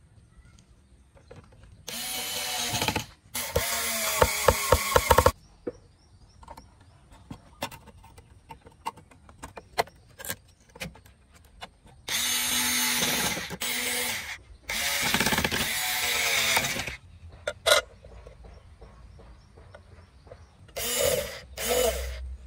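Cordless electric screwdriver driving small screws into an amplifier's metal case, running in about six short bursts with a motor whine that bends in pitch. The second burst carries a rapid run of clicks.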